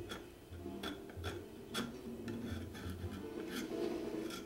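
Tenon cork scraper shaving old cork off a clarinet tenon: a series of short scraping clicks, irregular, roughly two a second.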